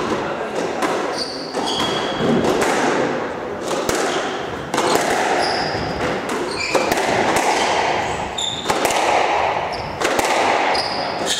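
Squash rally: the ball repeatedly smacking off rackets and the court walls and floor, echoing, with short squeaks of court shoes on the wooden floor.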